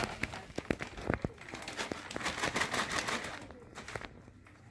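Rustling and crinkling with many light taps and clicks, fading off after about three and a half seconds.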